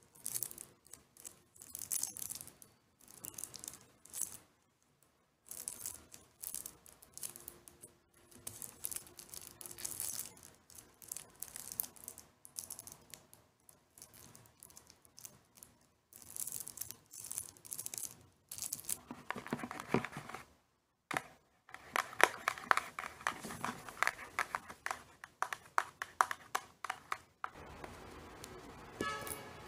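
Long fingernails scratching and raking the sides of a paper milk carton in repeated short strokes. From about two-thirds through, the strokes get louder and denser, a crackling of nails digging into the carton. Near the end, over a steady hiss, the nails move onto a cucumber's skin.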